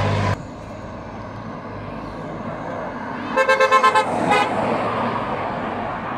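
Car horn beeping in a quick string of about six short toots a little over three seconds in, with one more short toot just after, over the low sound of cars running past.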